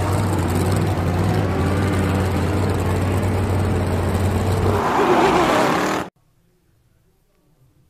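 Car engine sound in an intro: the engine runs loud and steady with a low hum, grows louder near the end, and cuts off suddenly about six seconds in, leaving faint room tone.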